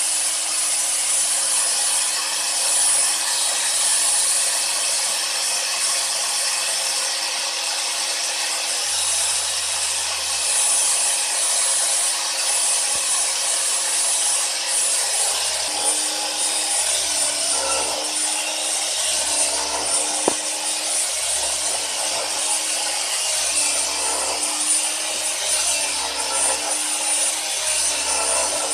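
Angle grinder running as a CNC spindle, driving a 2 mm milling cutter through aluminium under coolant: a steady high-pitched whine over dense cutting noise. From about halfway a lower tone comes and goes in short steps as the machine's axes move the cutter.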